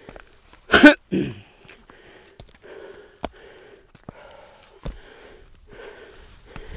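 A sudden, loud cough-like burst of breath close to the microphone about a second in, then repeated heavy breaths with a few sharp clicks.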